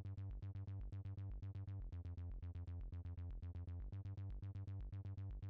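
Background electronic music with a quick, steady beat of about five pulses a second over a bass line.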